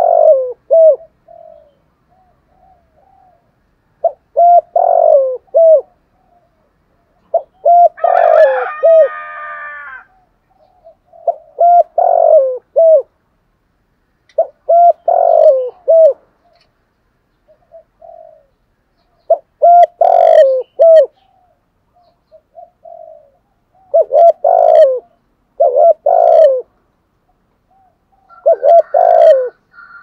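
Spotted dove cooing: a short phrase of a few low coos, repeated about every three to four seconds. About eight seconds in there is a longer, buzzier sound with rising overtones.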